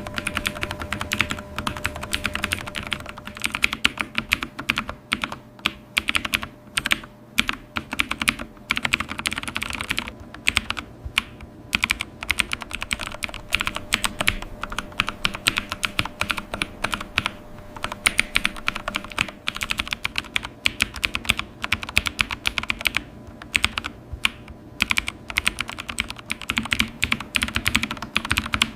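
Computer keyboard being typed on: rapid, irregular key clicks in quick runs, broken by short pauses of under a second.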